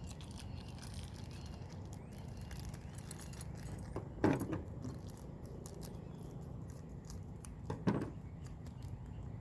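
Small metal stove braces being handled: a couple of sharp metal clicks, about four seconds in and again near eight seconds, over a steady low hum.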